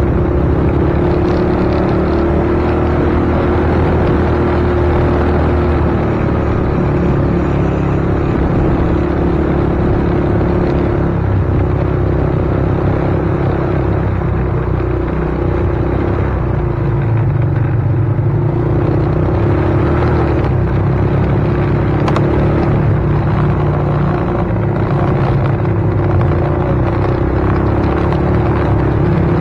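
Steady low rumble of a vehicle in motion, with a constant droning hum underneath.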